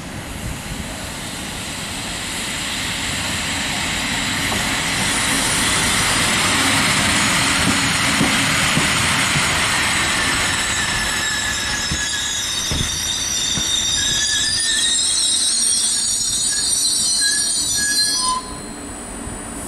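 The ETR 252 'Arlecchino' electric multiple unit rolling slowly past, getting louder as it draws near, its wheels squealing with several high, thin tones over the rumble of the wheels on the track. The squeal cuts off suddenly near the end.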